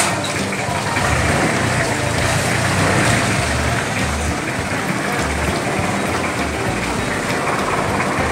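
Busy market crowd ambience: many people talking at once over a steady rushing noise, with irregular low thumps.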